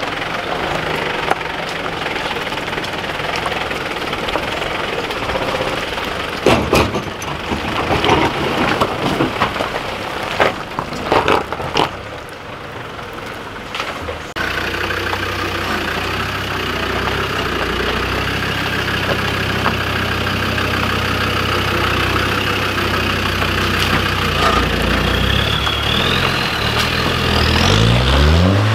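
4x4 engines crawling over a rocky off-road step. In the first half the engine works at low speed, with a few sharp knocks of tyres and metal on rock. From about halfway the Land Rover Defender 90's engine runs steadily at low revs, then revs up near the end as it pulls out of the puddle onto the rock step.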